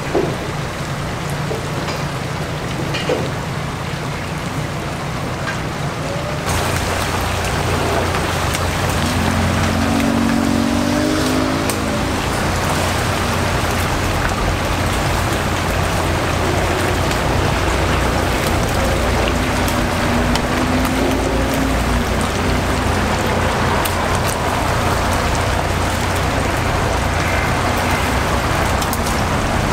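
Whole chickens deep-frying in a commercial fryer: hot oil bubbling and sizzling in a steady rain-like hiss. It gets louder about six seconds in.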